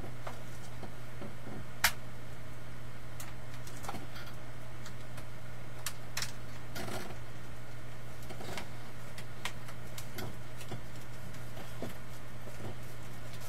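Scattered light clicks and taps of hands pressing self-adhesive LED light strips onto a wall, with one sharper click about two seconds in, over a steady low hum.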